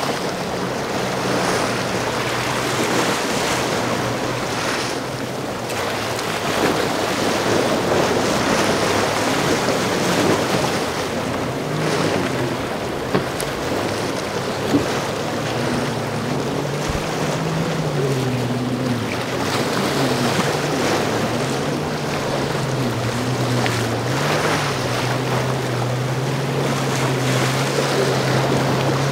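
Surf breaking and wind on the microphone, with a boat's engines droning in over it about twelve seconds in, their pitch wavering up and down.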